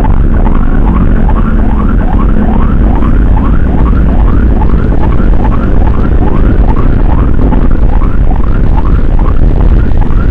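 Emergency siren on a fast yelp, a rising wail repeated about two and a half times a second without a break, over a steady low rumble.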